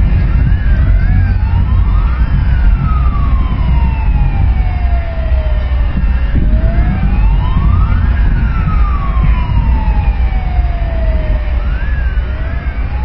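Several sirens wailing at once: one slow wail that climbs for about a second and a half, then sinks for several seconds and repeats twice, with quicker, shorter rising-and-falling sirens overlapping it. A loud, steady low rumble runs beneath.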